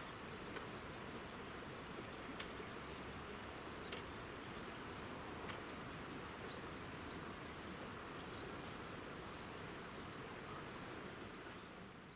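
Steady outdoor summer ambience of insects buzzing, with a few faint ticks in the first half, fading out at the very end.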